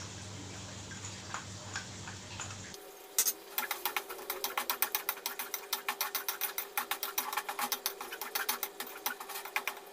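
A metal spatula stirring thick green chilli paste in a steel wok, scraping and clicking against the pan in a fast, even rhythm of about six strokes a second. The stirring starts about three seconds in, after a steady low hum with a few light taps.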